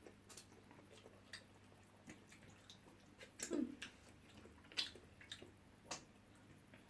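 Faint wet eating noises of fufu with egusi pepper soup: scattered mouth smacks and small clicks, with a louder smack about three and a half seconds in and two more near the end.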